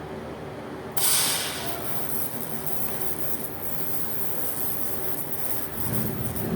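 TIG (GTAW) welding arc on carbon steel pipe, struck suddenly about a second in, loudest at the strike, then hissing steadily.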